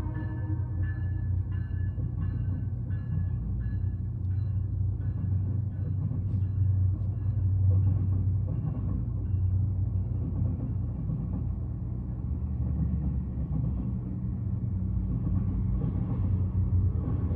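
Virginia Railway Express commuter train of bilevel cars passing, a steady low rumble of diesel and wheels on rail. Over the first half there is a faint, regular high ticking ring, about twice a second.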